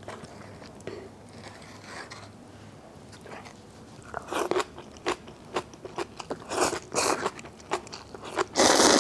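Eating instant ramen: irregular slurps and crunchy chewing start about four seconds in, ending in a long, loud slurp of noodles.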